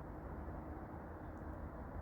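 Quiet night-time background: a steady low rumble and hiss with no distinct knocks or other events.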